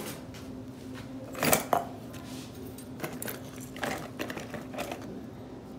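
Christmas ornaments and small trinkets clinking and rattling against each other and the plastic bin as a hand rummages through them, in scattered knocks with the loudest about one and a half seconds in, over a steady low hum.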